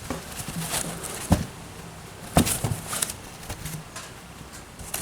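Packing foam being pulled out of a cardboard shipping box: irregular rustling with a few sharp knocks, the loudest about a second and a half and two and a half seconds in.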